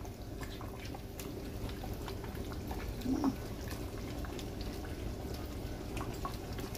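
Faint wet clicks and drips of thick curry sauce being ladled in the pot, over a steady low hum. A short rising-then-falling tone sounds about three seconds in.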